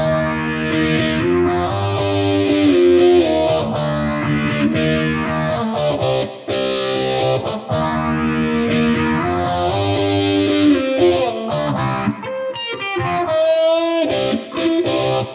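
Flight Vanguard solid-body tenor electric ukulele played through crunch distortion with a phaser, chords and riffs ringing out under a slow phaser sweep that rises and falls.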